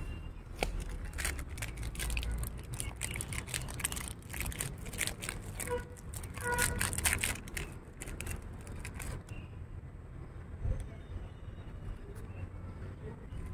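Plastic biscuit packet crinkling as it is handled and opened: a quick, irregular run of crackles that thins out after about nine seconds.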